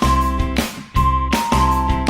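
Background music: an upbeat track with a steady beat and sustained melody notes.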